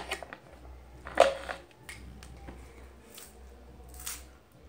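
A colored pencil being turned in a small handheld pencil sharpener: a few short scraping strokes, with one louder sharp sound about a second in. The pencil will not sharpen and its tip keeps breaking off.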